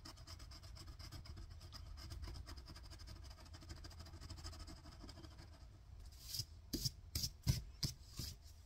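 Fingertip scratching at a holographic scratch-off sticker on a paper card, a fast, even rubbing. Several sharper, louder scrapes and taps come near the end.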